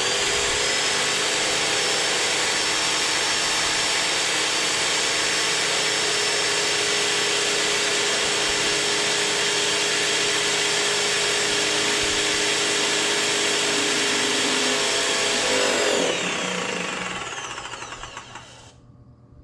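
Graco X7 airless paint sprayer's electric pump running under pressure with the spray gun held open, flushing cleaning fluid through the hose and gun: a steady whine over a loud hiss. It winds up at the start, runs evenly, then winds down and fades about three seconds before the end.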